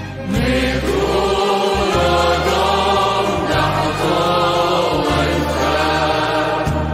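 Background choral music: voices singing a slow chant over held low notes, with a new phrase starting just after the beginning.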